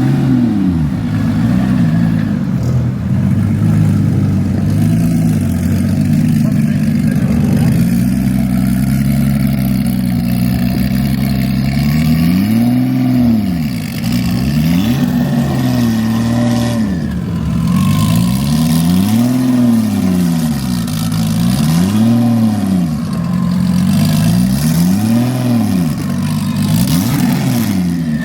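Bisimoto-built Porsche 935's engine running at a steady idle, then revved repeatedly from about halfway through, each throttle blip rising and falling in pitch roughly every two seconds.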